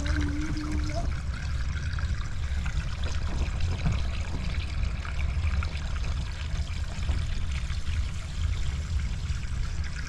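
Steady noise of running or trickling water, with a strong low rumble underneath.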